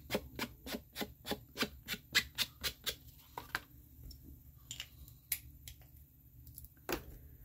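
A small ink pad is dabbed quickly along the edges of folded white cardstock to ink them, making light tapping strokes about five or six a second. The strokes stop about three seconds in, leaving a few scattered taps and one louder knock near the end.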